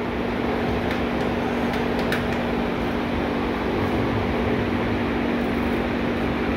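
A steady mechanical hum with a constant low drone that does not change in speed or pitch.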